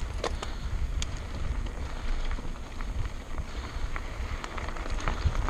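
Wind rumbling on a bike-mounted camera's microphone as a mountain bike rolls down a loose gravel track, with tyres crunching over stones and scattered sharp clicks and rattles from stones and the bike.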